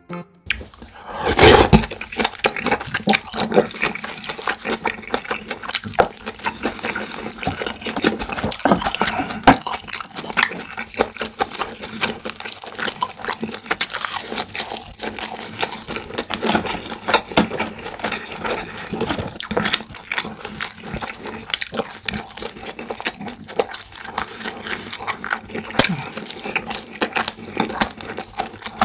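Close-miked eating sounds: wet chewing and mouth smacking with short clicks in quick, irregular succession, and a louder burst about a second and a half in.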